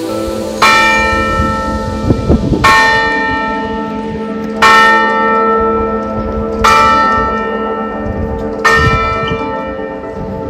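A large bell tolling slowly, one strike about every two seconds, five strikes in all, each one ringing on and fading into the next.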